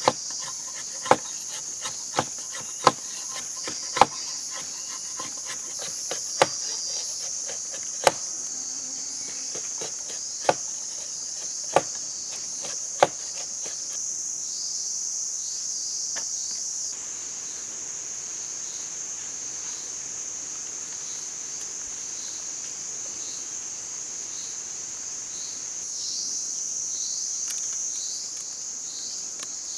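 A large knife chopping into a bamboo stick laid on a log: about ten sharp, separate knocks in the first half, then they stop. Under them a steady, high insect chorus drones throughout and swells twice.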